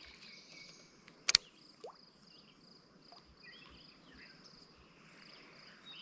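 Outdoor riverside ambience: a steady high-pitched pulsed trill like an insect's, with a few short bird-like chirps in the middle and one sharp click about a second in.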